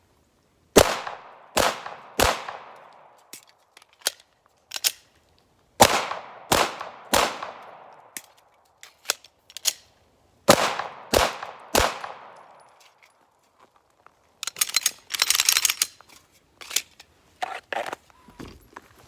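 Glock 17 Gen 5 9mm pistol fired in three strings of three shots, the shots in each string about half a second apart and the strings a few seconds apart, each shot with a ringing echo tail.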